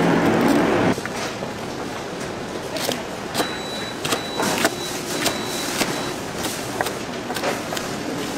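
About a second of steady machine hum cuts off abruptly. Then a kitchen knife chops scallion stalks on a plastic cutting board: sharp, irregular chopping strokes over a steady background hiss.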